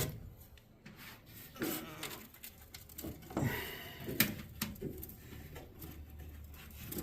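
Scattered light clicks, knocks and rubbing of dryer parts being handled and fitted by hand, with one sharper click about four seconds in.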